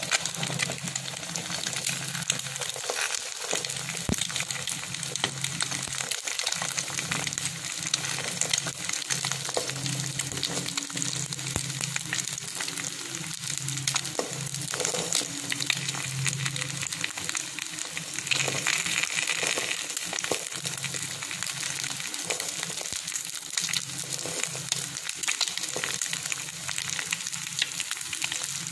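Eggs frying in hot oil in a pan: a steady crackling sizzle, thick with small spattering pops.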